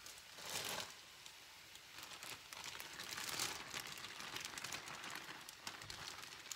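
Clear plastic bag crinkling as it is handled and shaken out over a skillet, with louder rustles about half a second in and again about three seconds in.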